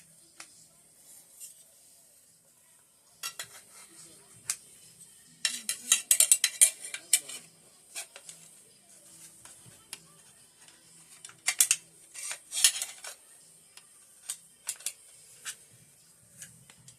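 Metal clinking, clicking and clattering of rifle parts and tools being handled, in several quick flurries with single ticks between.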